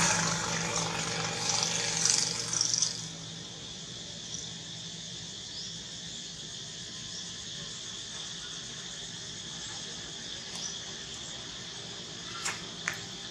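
Steady high-pitched insect drone outdoors, with a passing vehicle fading out over the first three seconds and two sharp clicks near the end.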